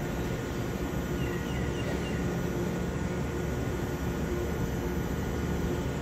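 Steady hum and hiss of a standing Taiwan Railway EMU3000 electric multiple unit, its on-board equipment running, with a faint constant tone in the hum.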